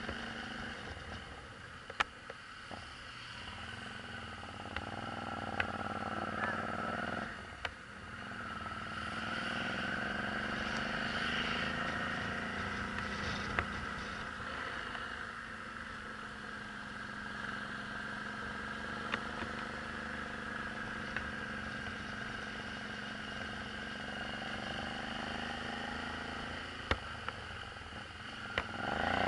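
Suzuki V-Strom 650's V-twin engine pulling uphill, its pitch rising and falling with the throttle and gear changes. It drops off sharply about seven seconds in and climbs again, then revs up steeply near the end. A few brief clicks are scattered through it.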